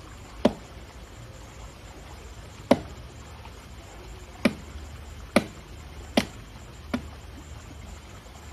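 Six sharp knocks at uneven intervals over a steady low hum, the second and third the loudest.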